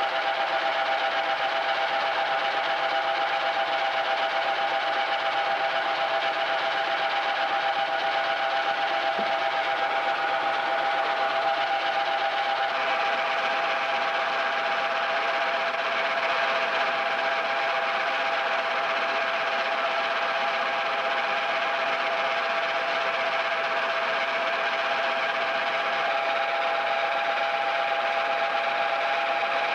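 Farm grinding mill running steadily as it grinds feed into a sack, giving a constant high whine over an even grinding noise.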